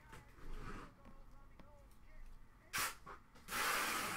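Glossy trading cards sliding against one another in the hands as a stack is sorted: a brief rasp a little under three seconds in, then a longer, louder one near the end.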